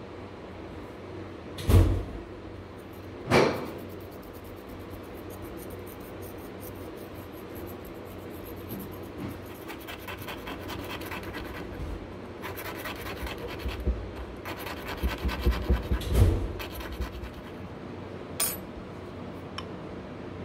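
A thin metal file rasping in quick short strokes on the inside of the metal hoop of a Japanese chisel handle, to fit the hoop to the handle. There are two sharp knocks about two and three and a half seconds in, and a thump and a click near the end.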